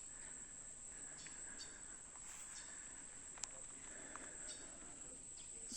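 Steady high-pitched insect chorus, with faint scattered chirps and a single sharp click about three and a half seconds in.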